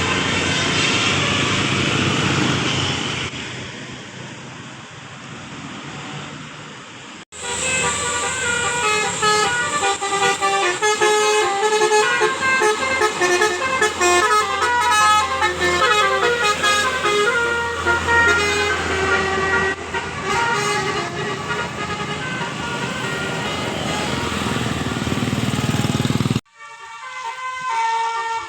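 Telolet basuri multi-tone bus air horn playing a tune of short stepped notes, starting suddenly a few seconds in and stopping abruptly near the end. Before it, a noisier vehicle sound fades down.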